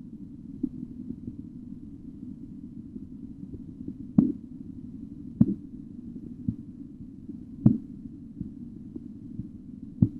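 Korotkoff sounds heard through a stethoscope during auscultatory blood pressure measurement: soft taps early on, then clear, sharp taps from about four seconds in, a little slower than one a second, over a steady low rumble.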